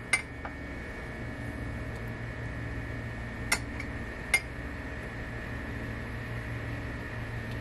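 Steady mechanical hum with a faint high whine. A metal spatula clicks sharply twice against a steel pan, about three and a half and four and a half seconds in, while thick halwa is stirred.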